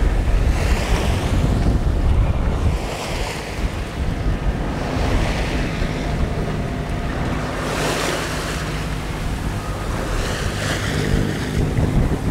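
Sea water rushing and splashing along a sailing yacht's hull, swelling every two to three seconds, over the steady low hum of the yacht's diesel engine motoring through calm water.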